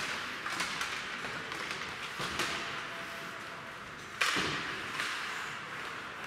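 Ice hockey play on an indoor rink: sticks and puck clacking and knocking against each other and the boards, over skates on the ice. There are about five knocks, the loudest a little over four seconds in, and each one echoes in the hall.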